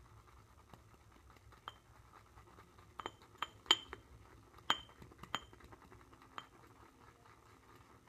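Shaving brush whipping soap into lather in a ceramic pottery bowl, with a faint swishing under it. The brush knocks against the bowl about eight times, each a sharp clink that rings briefly, most of them in the middle few seconds.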